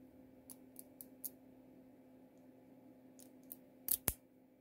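Light metallic clicking from a brass cutaway pin-tumbler lock cylinder with spool pins as it is handled, with two louder clicks in quick succession near the end as a key is pushed into the keyway.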